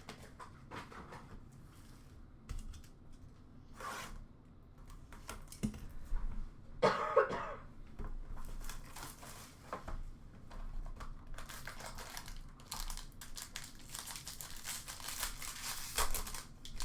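Plastic wrapping and card packs crinkling and tearing as a hobby box of hockey cards is opened, with a cough about seven seconds in. The crinkling and rustling grow dense near the end.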